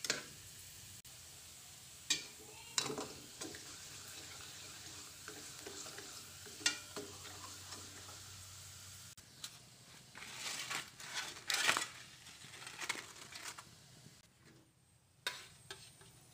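A krupuk puli rice cracker frying in a wok with a steady sizzle, while a metal spatula presses and turns it, scraping and knocking on the pan in sharp strokes now and then. From about ten seconds in the utensil noise gets busier and more irregular, then dies down near the end.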